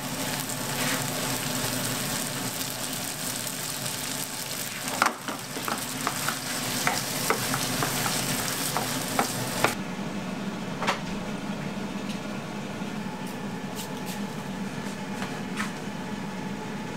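Gopchang (intestines) and vegetables in sauce sizzling in a frying pan as they are stir-fried, with a series of sharp clicks from the utensil against the pan. About ten seconds in, the high hiss of the sizzle drops away and the frying goes on more softly, with a few more clicks.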